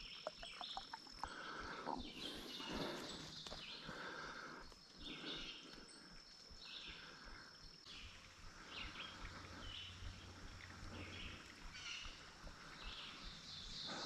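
Footsteps crunching and rustling through dry leaf litter and brush at a walking pace, in short irregular crackles. A thin steady high tone comes and goes in the background.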